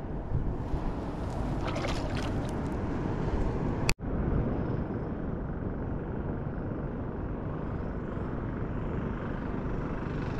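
Wind rushing over the microphone on a small boat at sea: a steady low rumbling noise. It drops out abruptly for an instant about four seconds in, then carries on.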